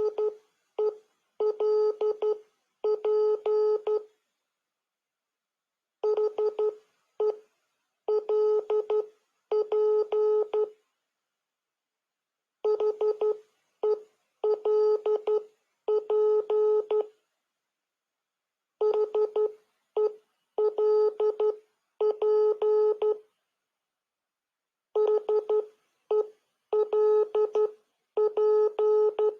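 Morse code signal tones: a buzzy beep keyed on and off, a few short signals followed by two long ones. The same group repeats about every six seconds, with silent gaps between.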